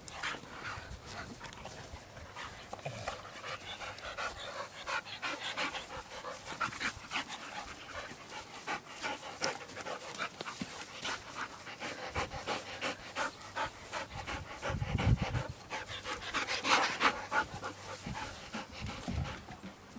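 Dogs panting hard and scuffling as they play-fight, in quick irregular breaths and rustles, louder about three-quarters of the way through.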